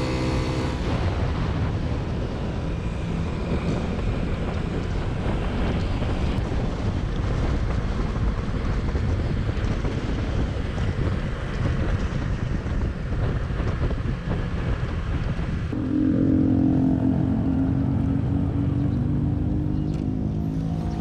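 Motor scooter riding along, its engine running under a steady rush of wind over a helmet-mounted microphone. About sixteen seconds in, a steady droning tone with overtones joins and holds.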